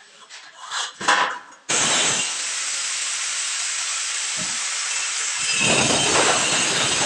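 Corded angle grinder switched on about two seconds in and running steadily with a loud hissing whine; from about five and a half seconds in its disc cuts into a drywall board, adding a rougher, lower grinding. Before it starts, a few knocks and rustles from the board being handled.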